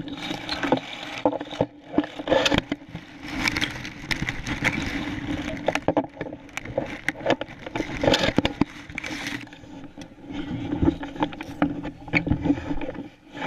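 Dry grass and stubble rustling and scraping against a shotgun-mounted camera, with irregular clicks and knocks from the gun being handled.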